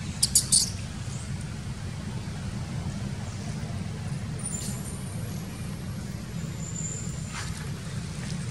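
Steady low outdoor rumble, with a quick cluster of three or four sharp high-pitched clicks about half a second in and faint thin high whistles around the middle and again near the end.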